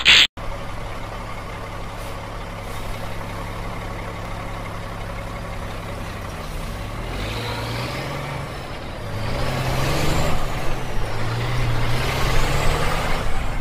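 A heavy engine runs steadily, then revs up and down several times in the second half, growing louder toward the end.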